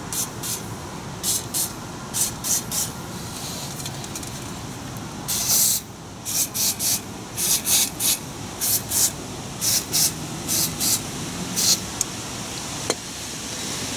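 Aerosol penetrating lubricant sprayed through a straw nozzle in many short hissing squirts, with one longer spray about five and a half seconds in, to loosen rusted brake caliper and rotor bolts.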